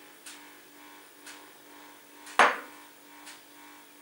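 A metal spoon clinks once, sharply, against a dish about two and a half seconds in. Faint ticks about once a second and a low steady hum run underneath.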